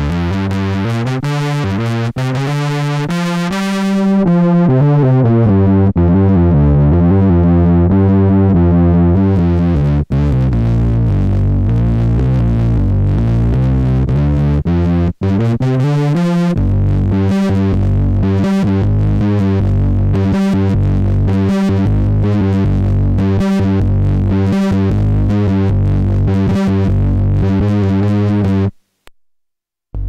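Behringer Poly D analog synthesizer playing a distorted monophonic patch from its keyboard, the tone brightening and darkening as the filter knob is turned in the first several seconds. From about halfway through it plays a steady repeated run of notes, then cuts off briefly about a second before the end.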